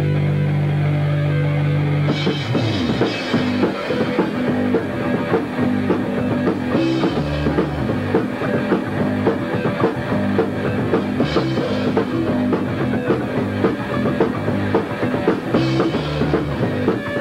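Punk rock band playing live in rehearsal: electric guitar and drum kit. A guitar chord rings for the first two seconds, then the drums come in and the band plays a fast, driving beat.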